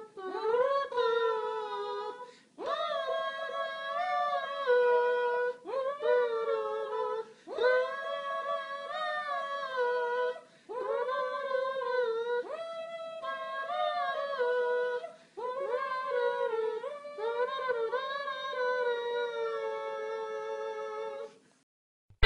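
A person humming a wordless tune in a high voice, in about eight phrases of two or three seconds with short breaks between, stopping shortly before the end.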